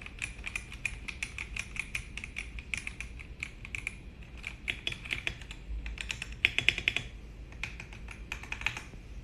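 Typing on an RK M75 wireless mechanical keyboard with PBT double-shot keycaps: quick runs of keystrokes with short pauses, the loudest strokes coming about six and a half seconds in.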